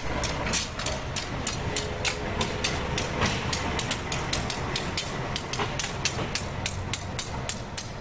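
CC 201 diesel-electric locomotive running as it moves slowly along the track, a low engine rumble with a steady rapid clatter of about four to five clicks a second.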